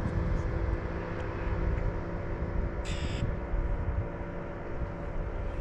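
Steady low hum of a distant engine, with one short bird call about three seconds in.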